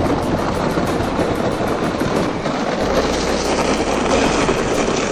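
Footsteps crunching through packed snow in a steady walking rhythm, with a low rumble of wind on the microphone.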